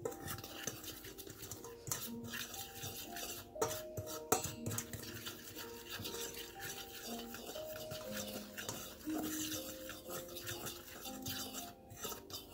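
Fork scraping and clicking against a stainless steel bowl as dry whole wheat flour is stirred, with a few louder clinks, over soft background music with held notes.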